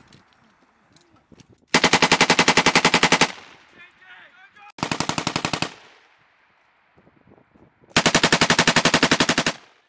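Tripod-mounted belt-fed machine gun firing three bursts at about ten rounds a second: one of about a second and a half, a shorter one near the middle, and another long one near the end.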